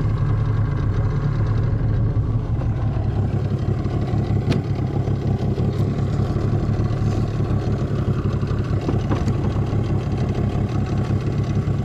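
Outboard motor running steadily at low trolling speed, an even low hum, with a couple of faint clicks from handling gear on deck.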